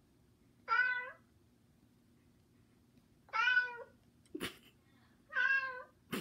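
Cat meowing: three separate meows of about half a second each, a couple of seconds apart, with a short knock between the second and third.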